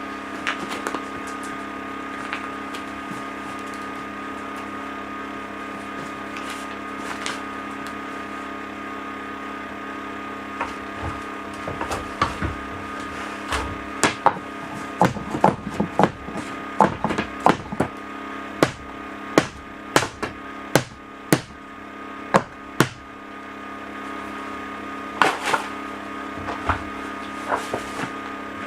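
Pneumatic staple gun firing staples into thin lauan ceiling panels: a few sharp shots at first, then a run of them about one a second through the middle, and a few more near the end. Under them runs the steady hum of a small air compressor.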